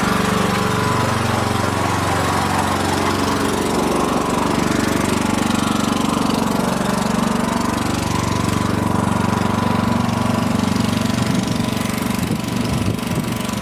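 Lawn mower engine running loud and close while cutting grass, its pitch dipping in the first few seconds and rising again later.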